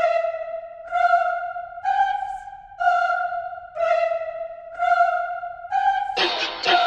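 Background music: a single melodic line of held notes, about one a second, with the full arrangement kicking in about six seconds in.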